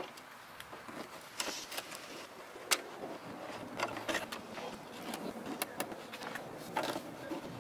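Screwdrivers working the screws of a car's rear license plate loose: scattered light metallic clicks, ticks and scrapes of the blade in the screw heads and of the plate being handled.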